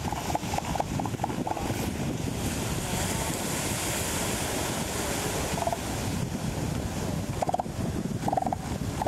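Northern elephant seals calling with rapid trains of pulses, a burst in the first two seconds, a single one mid-way and more near the end. Surf washes on the beach underneath, loudest in the middle, with wind on the microphone.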